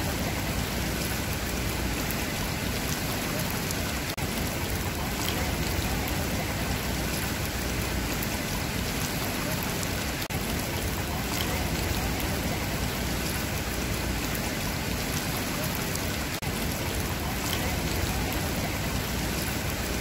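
Swimming-pool water splashing and trickling in a steady, even rush, with no single splash standing out.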